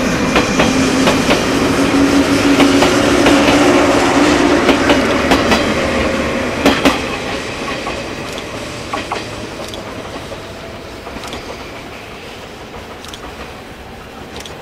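JR East 485-series electric train 'Zipangu' rolling past close by, its wheels clicking over rail joints over a steady low hum. The sound fades away steadily over the second half as the train recedes down the line.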